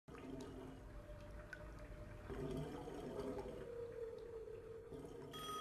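Whale song on a recording: long, drawn-out calls over a low watery hiss. About five seconds in, a steady high tone comes in.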